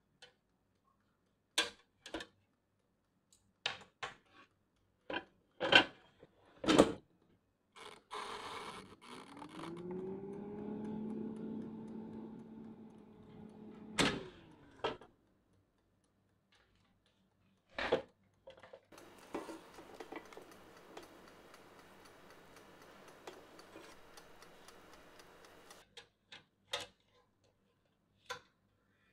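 Metal wire rack clinking against a cake tin and an air fryer basket several times, then the air fryer's fan motor hums, rising in pitch and holding steady for about five seconds before stopping with a clunk. A fainter hiss follows, and a few more clinks near the end as the rack is handled again.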